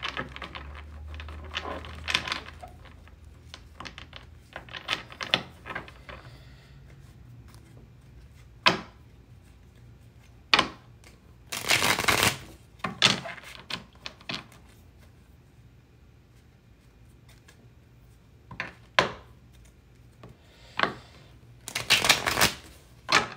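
Tarot cards being shuffled and then laid out on a wooden table: scattered card flicks and taps against the tabletop, with a longer burst of cards sliding about halfway through and again near the end.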